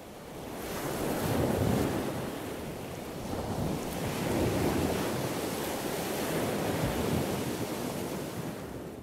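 Surf washing onto a pebble beach, swelling and easing every few seconds, with wind rumbling on the microphone.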